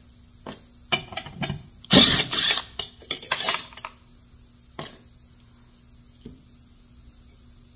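Metal clinks and clatter of a cordless impact driver, socket and small clutch parts being set down and moved on a steel workbench: a loud clatter about two seconds in, a quicker run of clinks just after three seconds, then a few single clicks.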